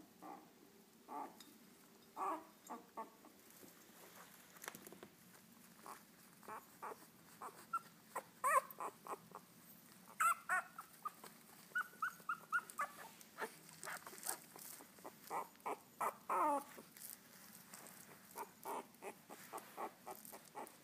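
Very young French bulldog puppies squeaking and whimpering in many short, high calls, with a quick run of repeated squeaks and a longer whine that falls in pitch.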